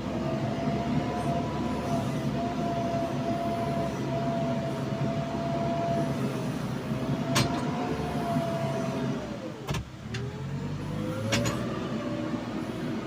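JCB 3DX backhoe loader's diesel engine running under working load with a whine. About ten seconds in, the whine sags sharply in pitch and the level dips briefly, then the whine climbs back. A few sharp knocks are heard in the second half.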